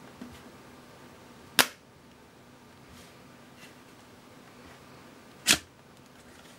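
Two sharp clicks about four seconds apart, with a few faint ticks between, as a phone fitted with a prototype TOHKBD slide-out keyboard is handled; the second click comes as the keyboard slides open.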